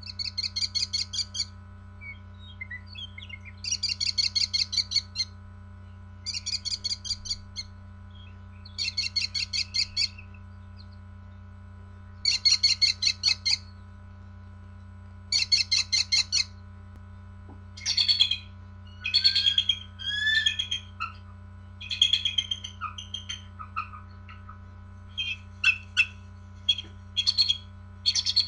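Bird-like chirping: short bursts of rapid high trills about a second long, repeating every few seconds, giving way after about 18 seconds to more varied chirps and gliding whistles, over a steady low hum.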